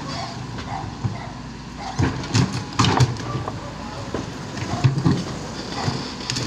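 Backhoe engine running steadily, with a cluster of loud knocks and surges about two to three seconds in and again around five seconds.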